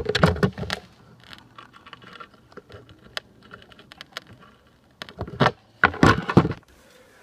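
Clicks, rattles and knocks of speaker wires and hardware being handled and connected, with a cluster of clicks at the start and a few louder knocks about five and six seconds in.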